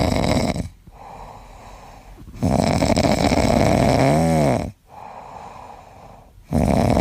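A sleeping pet snoring loudly: long rasping snores about every three seconds, with quieter breaths between them. A brief whistling squeak comes partway through the middle snore.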